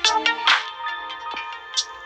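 A Samsung Galaxy A21s ringtone playing: an electronic tune of pitched notes over a beat, with a sharp hit at the start and another about half a second in.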